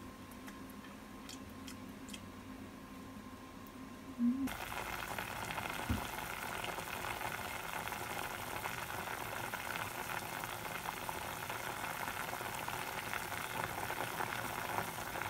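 Seasoned braising liquid bubbling and sizzling around pan-fried tofu cubes in a pot, a steady simmer that starts suddenly about four and a half seconds in. Before it there is only a faint low hum.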